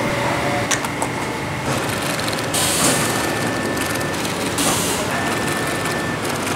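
Steady whirring of workshop machinery, an industrial sewing machine stitching leather, with short bursts of hiss about three and five seconds in.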